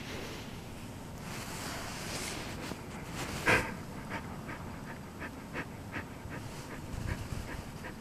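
A dog panting with her muzzle poking out from under a kotatsu quilt: short quick breaths, about two to three a second, from about four seconds in. Before that there is a soft hiss and one sharp, loud sound about three and a half seconds in.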